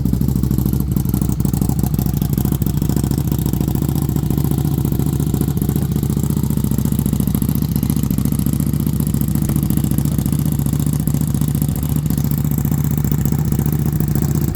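Buell Super Cruiser's 1190 cc V-twin engine idling steadily.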